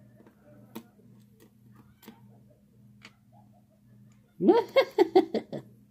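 A few faint metallic clicks from tweezers and lock pins as a lock cylinder is reloaded, then near the end a loud burst of laughter, about six rising-and-falling laughs in quick succession.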